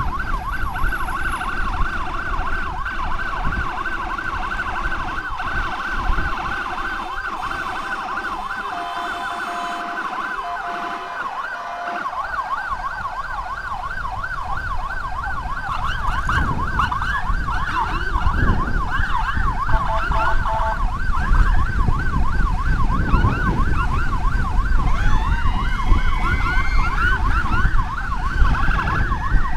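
Emergency vehicle siren in a fast rising-and-falling yelp, over the rumble of road and wind noise. A second siren with slower rising wails comes in near the end.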